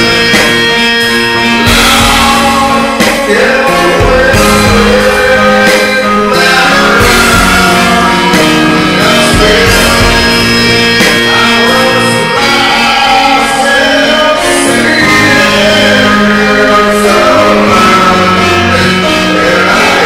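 A rock band's song plays: guitar-driven music with singing.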